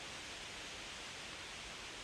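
Wind blowing through autumn leaves: a steady, even rustling hiss without gusts or separate sounds.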